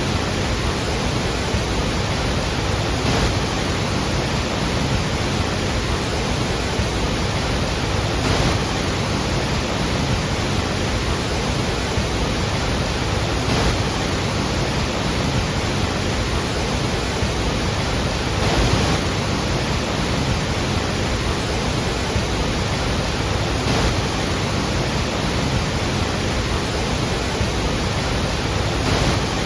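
Iguazú Falls: a loud, steady rush of heavy falling water, with faint swells about every five seconds.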